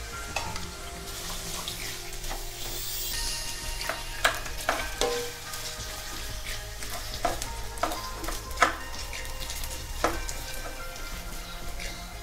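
Potato cubes sizzling as they fry in hot oil in a kadhai, with a spatula stirring them and knocking sharply against the pan about five times.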